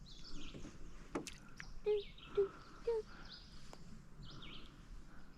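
Small birds chirping and singing repeatedly, with one sharp click about a second in and three short low notes between two and three seconds in.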